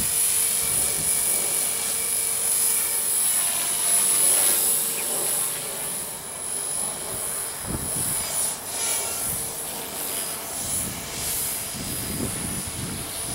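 Small battery-powered radio-controlled helicopter flying, its electric motor and rotor giving a steady high whine. Wind buffets the microphone now and then, most near the end.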